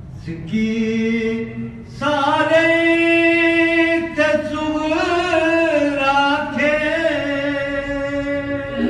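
A man's voice singing a Sindhi devotional salam, drawing out long held notes that waver and bend in pitch: a short phrase, then one long drawn-out note with a brief break in it.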